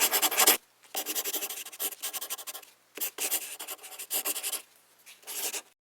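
Pen writing on notebook paper: scratchy strokes in about six short bursts, each roughly half a second long.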